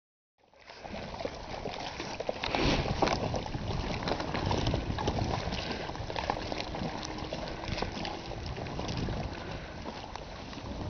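Wind rumbling on the camera microphone, with scattered light crackles and clicks throughout.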